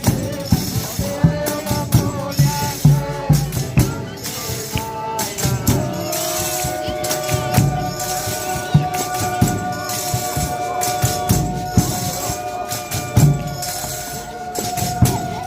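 A Folia de Reis ensemble playing: tambourines and rattles shaking over a steady drum beat, with one long held note that comes in about six seconds in and lasts almost to the end.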